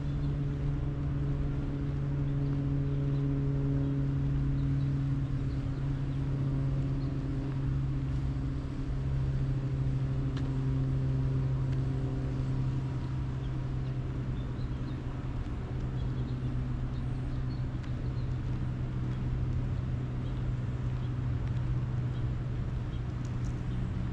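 A steady low mechanical hum with a few fainter overtones, its pitch wavering slightly, like a machine or engine running unseen.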